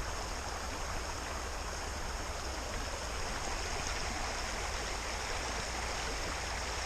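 A small stream running steadily over its bed: a continuous, even rush of water.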